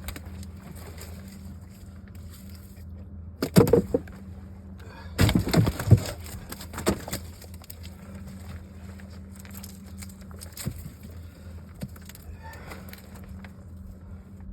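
Fishing boat's motor idling with a steady low hum, broken by bursts of loud knocking and clattering about four and six seconds in, then a few single knocks.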